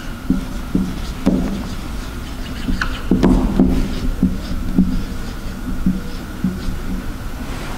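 Marker pen writing on a whiteboard: a run of short, irregular rubbing strokes against the board, with a faint steady high hum behind.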